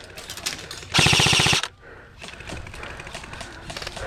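An airsoft gun fires one loud, rapid full-auto burst lasting under a second, about a second in, with a quick even run of shots. Fainter scattered pops of other airsoft fire follow.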